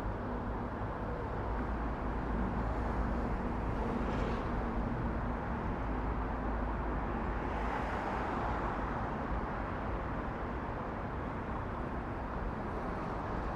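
Steady road traffic noise, a continuous rumble and hiss that swells briefly about eight seconds in.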